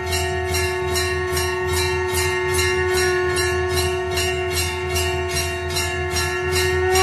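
Background music: a steady beat of jingling percussion over a long held note and a deep bass.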